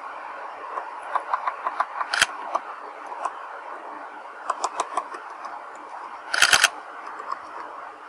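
Small woodpecker pecking at a branch: quick runs of light taps on the wood, with a few louder, sharper clicks, the loudest cluster about six and a half seconds in, over a steady outdoor background hiss.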